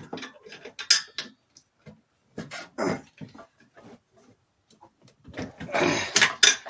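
Scattered metal clicks and knocks from a shock bolt being worked into a scooter's shock mount, with a longer, louder rough stretch about five seconds in.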